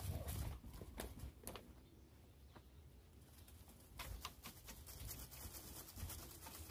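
Faint rustling with scattered soft knocks and clicks as a spaniel scrambles against a person's jacket and is petted. There are low thumps at the start, about four seconds in and about six seconds in, and a quieter lull before the middle.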